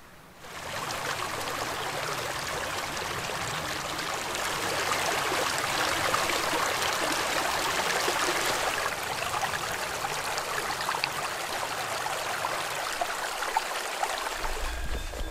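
Shallow mountain stream running over stones: a steady rush of flowing water that starts about half a second in. A low rumble joins near the end.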